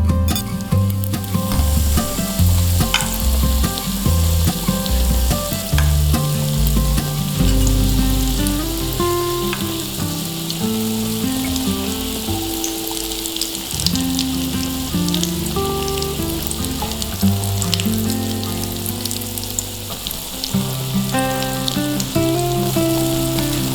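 Miniature potato cakes frying in a tiny pan: a steady sizzle with scattered sharp crackles.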